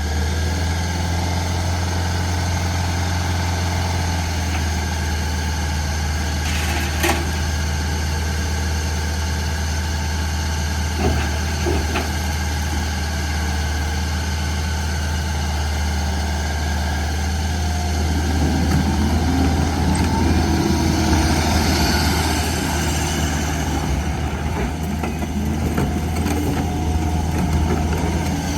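Takeuchi TL10V2 skid steer loader's diesel engine idling steadily, with a few short clanks. The noise is somewhat louder and busier in the last third.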